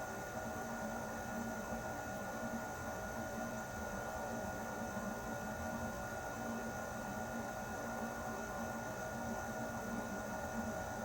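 Air conditioner running steadily: an even rush of air with a constant motor hum and a few fixed whining tones.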